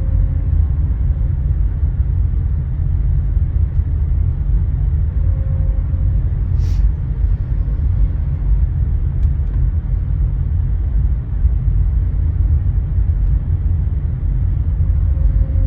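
Deep, steady rumble of a car ferry's engines and thrusters as the ship manoeuvres toward the docking ramp, with a brief hiss about seven seconds in.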